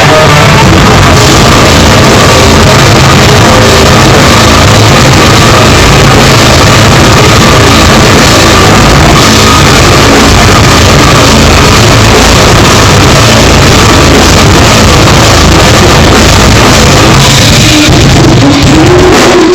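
Metal band playing live through a pub PA: distorted electric guitars, bass and drums, recorded so loud that it is saturated and harsh. The band sound thins briefly near the end.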